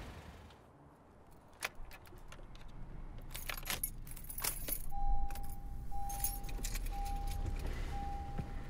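Car keys jangling and clicking inside a Honda Civic's cabin. About five seconds in, the engine starts and settles into a low steady run, while a dashboard warning chime beeps about once a second.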